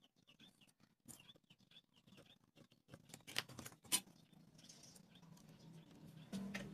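A craft knife scoring a wooden popsicle stick on a board: small scratches and clicks, with two sharper clicks about three and a half and four seconds in. Before the knife comes in, the stick and a plastic protractor are handled with light taps and scrapes.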